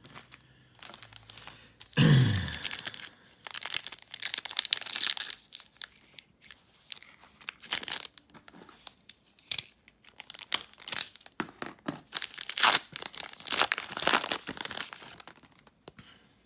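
Foil wrapper of a 2019-20 Donruss Optic basketball card pack being torn open and crinkled in the hands, a string of short rips and rustles, loudest about two seconds in. The rustling fades out just before the end.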